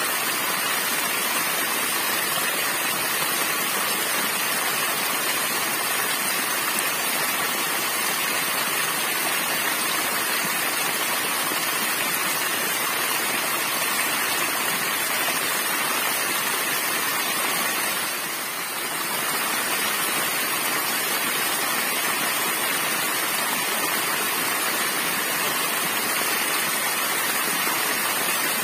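A small waterfall pouring over a rock ledge and splashing into a shallow rocky stream: a steady, even rush of water. It dips slightly for a moment about two-thirds of the way through.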